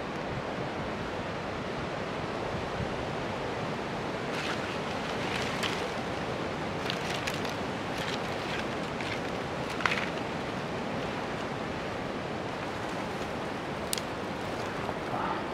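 Crackles and snaps from a small twig campfire catching and being fed sticks, scattered through the middle of the clip with one louder snap, over a steady rushing background noise.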